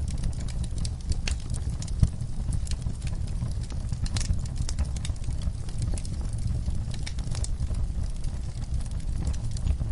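Wood fire in a fireplace crackling, with irregular pops over a steady low rumble of the flames and a sharper pop about two seconds in.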